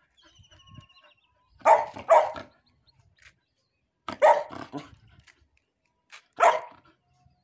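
Golden retriever puppy barking to get its rubber toy spider back: two barks in quick succession about two seconds in, another about four seconds in, and one more near the end.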